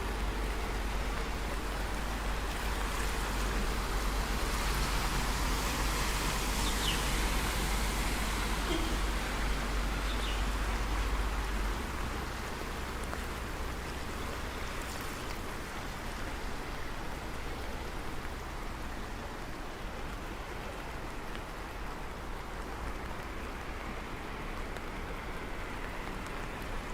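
Steady rain falling, an even hiss. A low rumble under it drops away about halfway through.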